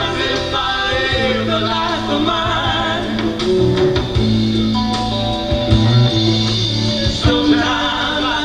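Live rock band playing a song with singing: drum kit, bass and guitar under a lead voice and backing singers.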